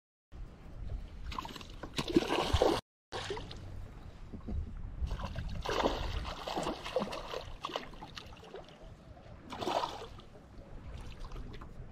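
Hooked bass thrashing and splashing at the lake surface beside the boat while being played on the rod, in several separate bursts of splashing. The sound drops out completely twice for a moment early on.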